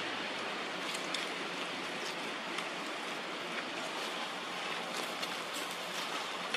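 Steady rushing ambient noise with a few faint, scattered clicks.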